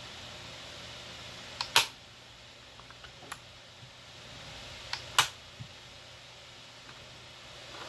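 Two sharp clicks about three and a half seconds apart, each coming just after a softer click, with a few faint ticks between them over a steady hiss.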